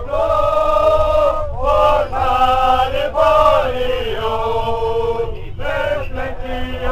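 A group of men singing a chant in unison, holding long notes that slide from one pitch to the next.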